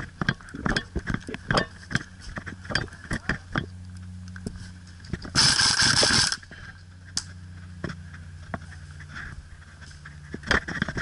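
A burst of airsoft electric gun fire lasting about a second, midway through, among scattered sharp clicks and knocks.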